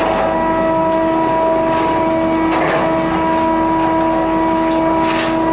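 Ship's machinery running with a steady, unchanging whine and hum. Short bursts of metallic clatter come about two and a half seconds in and again near the end.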